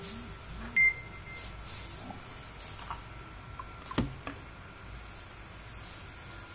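A short, high electronic beep under a second in, then a single sharp click at about four seconds, over faint steady hiss.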